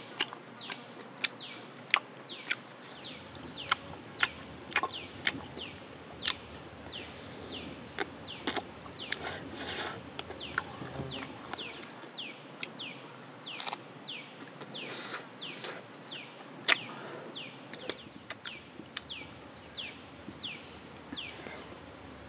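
Jungle ambience: a short call that slides downward is repeated about twice a second, over a steady background hiss. Scattered sharp clicks and snaps are the loudest sounds.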